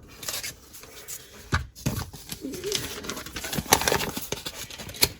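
Plastic LEGO pieces being handled and fitted together: an irregular run of small clicks and taps as the weighted centerboards are put into the boat hull.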